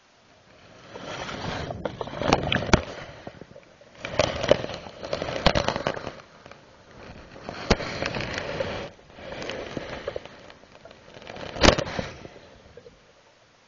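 Underwater camera being pulled through murky water, its housing scraping and knocking: about five surges of rushing noise, each two to three seconds long, broken by sharp clicks and knocks, the loudest near the end.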